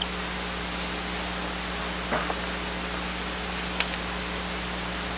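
Steady hiss with a low hum, broken by a few light clicks of hands and small screws on the laptop's case, the sharpest a little before four seconds in.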